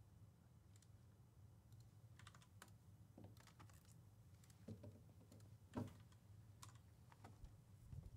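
Faint computer keyboard typing and clicks: scattered light taps, with a couple of louder ones about five and six seconds in, over a low steady hum.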